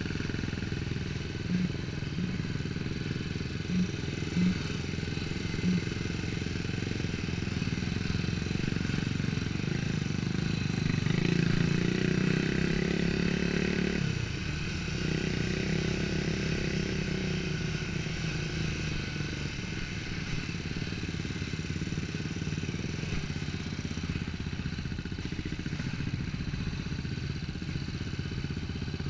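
ATV engine running along a trail, picking up revs about eleven seconds in and dropping off sharply at about fourteen seconds as the throttle is let go, with a few short knocks in the first several seconds.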